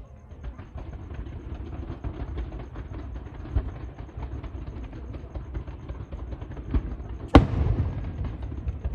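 Aerial fireworks: a steady low rumble with scattered small crackles, then one loud shell burst about seven seconds in, its bang ringing on for a second or so.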